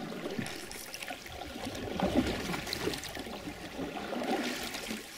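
Water splashing and trickling against a small aluminium boat as it moves along the river, in uneven surges.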